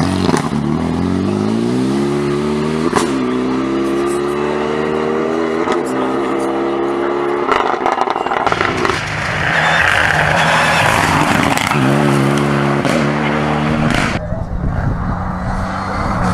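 Renault Mégane RS rally car's turbocharged four-cylinder engine under hard acceleration, its pitch climbing and dropping back at each upshift. Partway through it fades into a rushing noise, then comes a run of quick gearchanges before the sound changes abruptly near the end.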